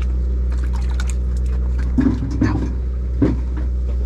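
A party boat's engine drones steadily with a low, even hum, while a few knocks and clatters from gear or fish being handled on deck sound about two and three seconds in.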